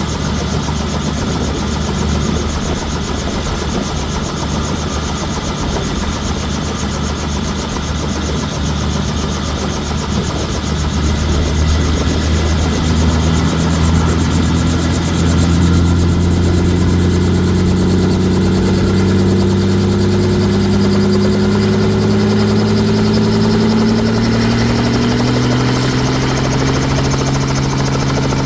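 Helicopter engine and rotor running on the pad, the pitch rising steadily through the second half as it spools up toward takeoff speed.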